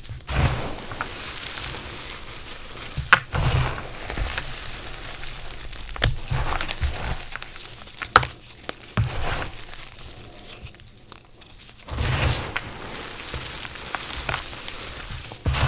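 Hands crushing and crumbling chunks of gym chalk reforms: irregular crunching and crackling as the pieces break and powder sifts down. There are sharp snaps about three, six and eight seconds in.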